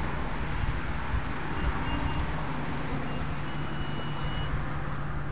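Steady low hum under a rumbling noise, with faint high beeps; the longest beep lasts about a second, a little past the middle.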